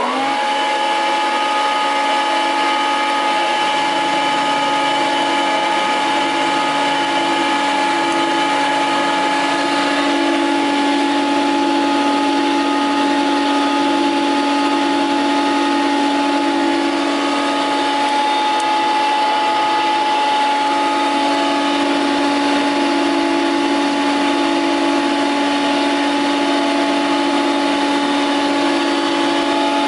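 KOFAMA Koronowo DSPA-32 three-sided planer-thicknesser switched on: its motors spin up with a quick rising whine that levels off within the first second, then run steadily without load, a constant whine over a lower hum.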